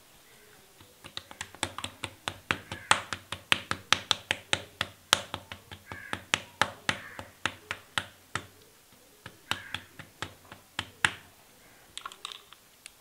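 Clear slime being pressed and patted flat against a tabletop by hand, giving a quick run of sharp sticky clicks and pops, about four a second, with a short pause partway through and a few more clicks near the end.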